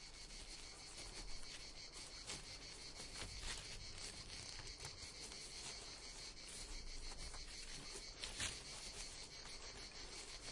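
Faint night ambience of crickets chirring steadily, with light scratching clicks scattered through it; one click stands out about eight seconds in.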